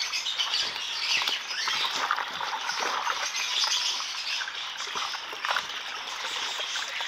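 Water splashing and live catfish thrashing as a net full of fish is emptied into a plastic tub of water: a dense, irregular crackle of splashes and slaps.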